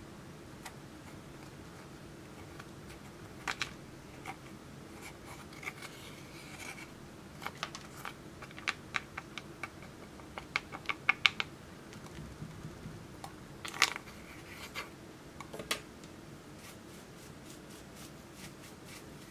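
A thin stick scraping and picking pressed eyeshadow powder out of a plastic compact: scattered sharp clicks and ticks, a quick run of them about halfway through and the loudest a little after, over a low steady hum.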